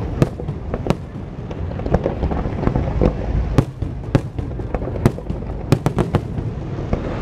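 Festival fireworks bursting: a string of sharp bangs at irregular intervals, about one or two a second, over a steady low rumble.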